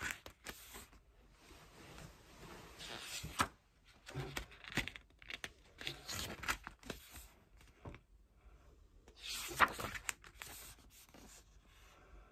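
Glossy pages of a photobook being turned and rubbed by hand: several separate papery swishes, the loudest near the end.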